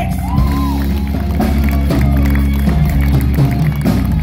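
Live rock band playing, with electric guitar, bass guitar and drums.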